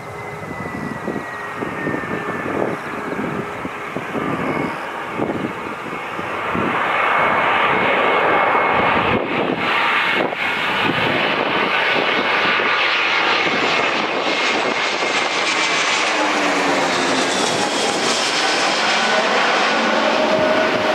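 Airbus A321-200 jet airliner on final approach passing low overhead, its engine whine and rumble growing louder over the first several seconds and then staying loud. Near the end the engine tones slide down in pitch as it goes past.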